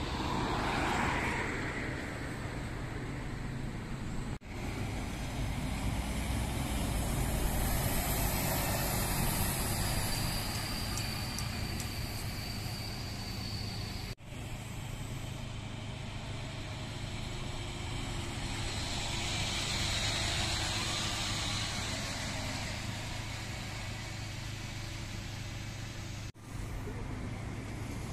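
City buses and other road traffic passing at low speed, with the buses' diesel-type engine drone and tyre noise. The sound cuts out abruptly three times, for an instant each, where separate clips are joined.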